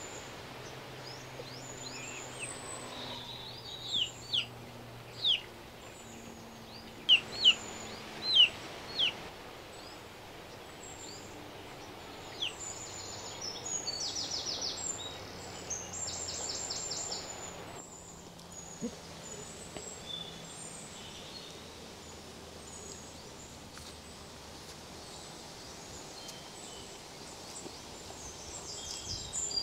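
Birds calling in the open: many faint high chirps throughout, with a run of loud, sharp whistled notes between about four and nine seconds in and a rapid buzzy trill around the middle.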